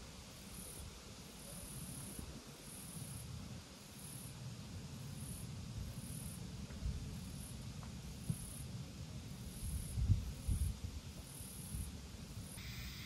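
Insects chirping in short, high-pitched pulses roughly once a second, over a low rumble with a few soft thumps, the strongest about ten seconds in.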